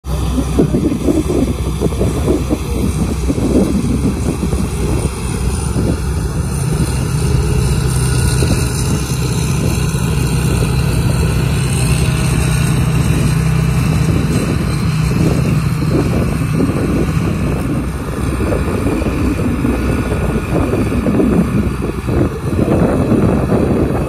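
Rice combine harvester running steadily as it cuts and threshes standing rice, its engine and threshing machinery making a continuous hum.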